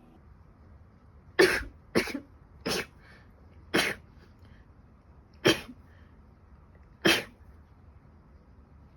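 A woman with a cold coughing: six short, sharp coughs, unevenly spaced, the first three in quick succession.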